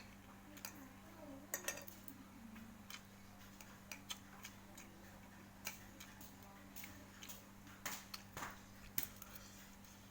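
Close-miked eating: irregular soft clicks and wet smacks of chewing, with a few sharper clicks, over a steady low electrical hum.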